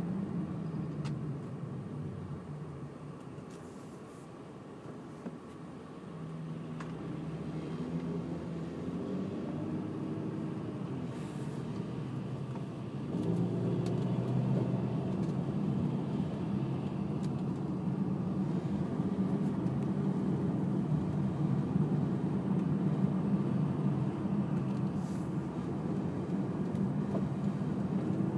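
Engine and road noise of a moving car heard from inside the cabin, a steady low rumble that grows louder about halfway through.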